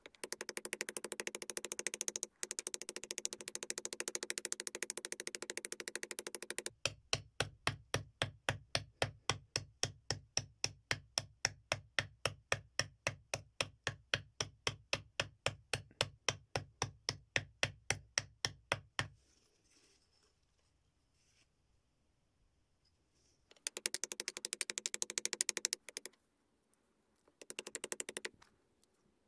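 Animal bone being scraped and ground with a hand-held stone against a rough stone slab to shape it. It starts with a fast run of rasping strokes, then settles into a steady rhythm of about four strokes a second. After a pause of a few seconds, two short bouts of rapid strokes follow.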